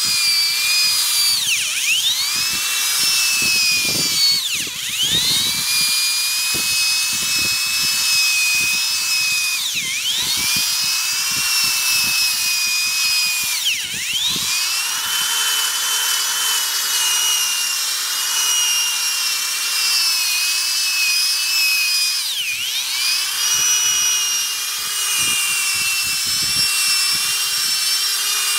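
Corded drill-type buffing machine spinning a foam Powerball polishing pad against a fiberglass boat hull: a high motor whine that dips in pitch and climbs back up about five times, over a steady hiss.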